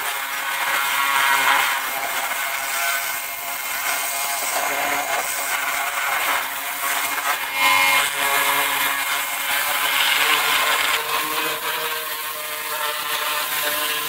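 High-pressure washer running: a steady pump-motor whine under the hiss of the water jet, which is blasting expanding mounting foam off the car's rusted body.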